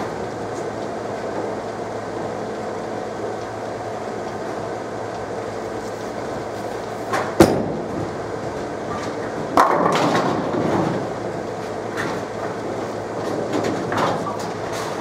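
A solid-cover Motiv Carbide Tank bowling ball thuds onto the wooden lane at release about halfway in, rolls, and crashes into the pins about two seconds later, over the steady rumble of balls rolling and pinsetters running on the surrounding lanes. Another smaller clatter comes near the end.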